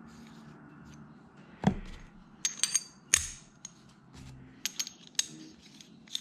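Small machined metal parts being handled: a soft knock about one and a half seconds in, then a quick run of sharp metallic clinks with brief ringing, followed by a few lighter ticks.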